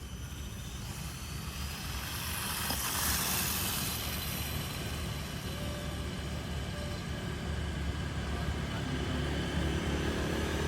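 A 1/4-scale RC motorbike running along a road: a steady low rumble, with a hiss that swells about three seconds in as it goes by.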